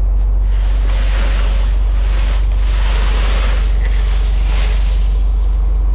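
Sport-fishing boat's engine running with a steady low drone, under wind and sea noise, with a rushing hiss that swells several times.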